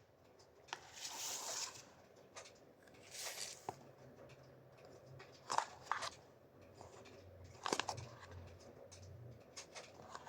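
Packaging being handled and opened: faint rustling and tearing in short bursts, with scattered clicks and taps.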